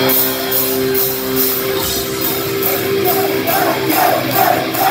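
Live heavy metal band at a concert, loud. A held chord gives way near the start to a steady beat of cymbal-like hits about twice a second, and about halfway through the crowd starts shouting in time with the beat.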